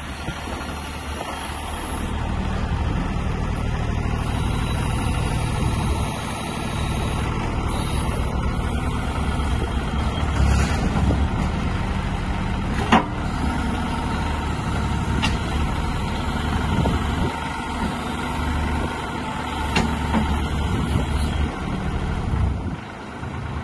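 Infront YFE20 mini excavator running, its engine note rising and easing as the hydraulics move the boom and arm. There is a sharp click about halfway through, and the engine sound drops off near the end.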